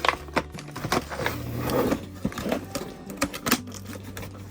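Cardboard and plastic toy packaging being handled and pulled apart: an irregular string of sharp clicks and crackles, with a short rustling crinkle a little before the middle.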